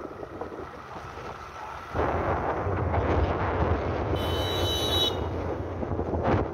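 Wind buffeting the microphone, over the low rumble of a TVS motorcycle riding along a dirt trail. The noise is lighter for about the first two seconds, then turns suddenly louder and rougher. A brief high-pitched tone sounds for about a second near the middle.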